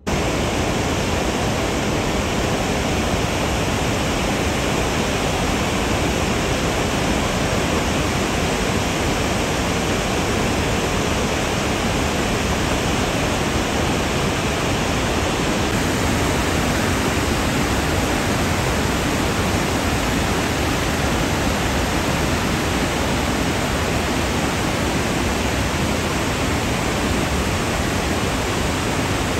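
A river in flood rushing and churning through rapids, a steady, unbroken rush of water.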